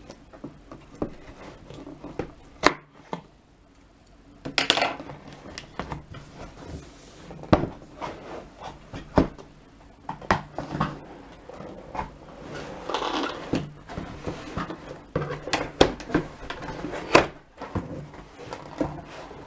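A cardboard laptop box being cut open and unpacked: scissors on packing tape, then cardboard flaps and inner packaging scraping and knocking. The sound is scattered clicks and knocks, with a couple of longer scrapes.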